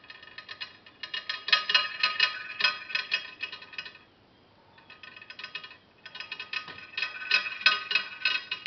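Homemade putt-putt (pop-pop) steam engine made from a brass 30-30 rifle cartridge on an aluminium arrow shaft, running with rapid metallic rattling ticks that ring. The ticking comes in spells: it is strong from about one second in, fades to a lull around four to six seconds in, then picks up again.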